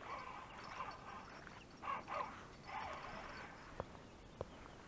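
Faint splashing and rustling as a freshly caught perch is pulled from shallow water and handled, in three short bursts, followed by two light clicks near the end.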